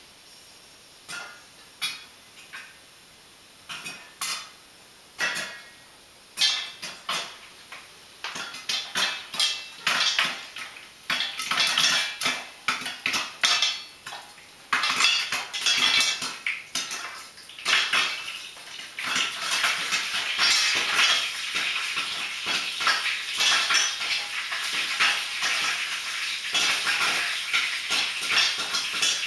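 Popcorn kernels popping in a covered metal pot on the stove, the kernels pinging off the lid and sides. A few scattered pops at first, coming faster from about a third of the way in, and running together into fast continuous popping for the last third as the batch reaches full pop.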